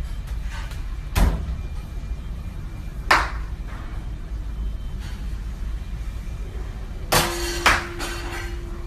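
Raw steak and a butcher's knife being handled on a plastic cutting board: a few sharp thuds and knocks, the first about a second in and two close together near the end, over a steady low kitchen hum.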